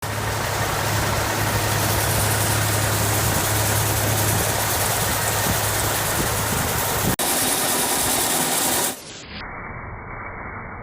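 A motor vehicle's engine running steadily with a low hum under a rushing noise. The sound changes abruptly about seven seconds in, and again near nine seconds, where it turns quieter and duller.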